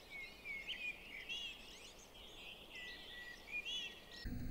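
Birds chirping: many short, high chirps and whistles over faint background noise, stopping shortly before the end.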